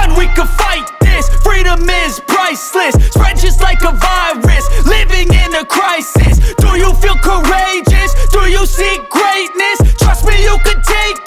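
Background hip hop music: a rap track with deep bass notes and a vocal line.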